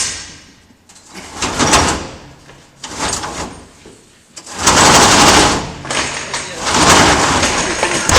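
Heavy steel conveyor chain being hauled by hand into a feed mixer, scraping and rattling over the steel in a few short pulls and then a long, loud drag through the second half.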